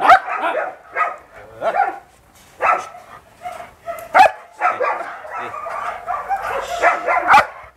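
German Shepherd Dog barking repeatedly: a series of sharp barks at uneven intervals.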